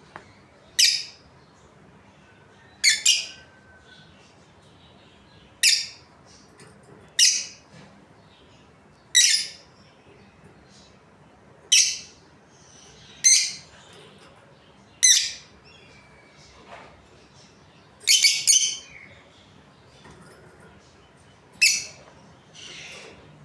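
Budgerigars calling: short, sharp, high chirps, about ten of them, one every two seconds or so, with a quick burst of two or three calls about three-quarters of the way through.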